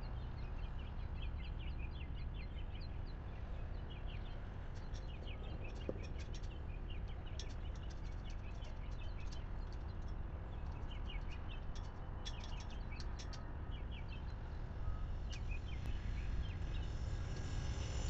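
Birds chirping and singing in many short calls over a steady low rumble. Near the end the rumble grows louder as an approaching train nears.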